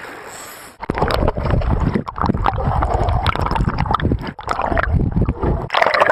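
Water splashing and gurgling close to a phone's microphone, with choppy rumbling buffeting that starts about a second in.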